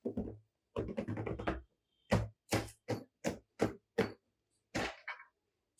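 A quick cluster of sharp knocks, then a steady run of single knocks about two or three a second, with one more a little later.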